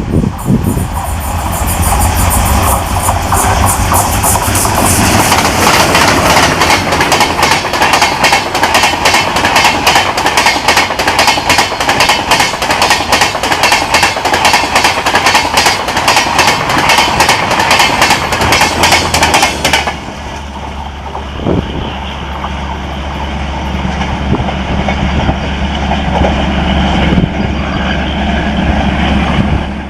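Diesel-hauled express train passing at speed, its wheels clattering rapidly over rail joints and crossovers, with the locomotive's engine rumbling low in the first few seconds. About twenty seconds in, the clatter cuts off abruptly and a steady low diesel engine drone takes over.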